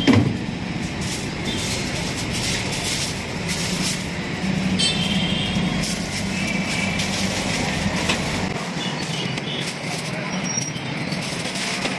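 Steady road traffic noise, with a low engine rumble that drops away about two-thirds through.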